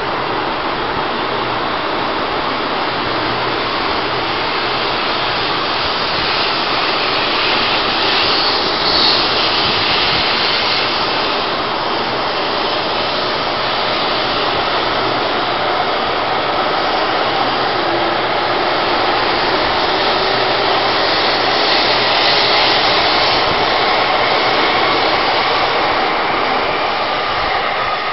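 Taiwan High Speed Rail 700T electric high-speed train pulling out of the station past the platform: a loud, steady rush of wheels on rails and air, growing a little louder as it picks up speed, then easing as the last car goes by at the end.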